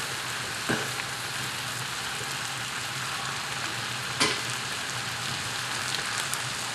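Spaghetti and eel stir-fry in sauce sizzling steadily in a wok. A couple of light clicks come through, one about a second in and one just past four seconds.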